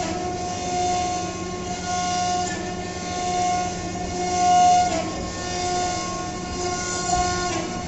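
Spindle of a high-speed CNC router whining at a steady pitch while cutting, swelling and fading in loudness as the tool moves. The pitch dips briefly about five seconds in.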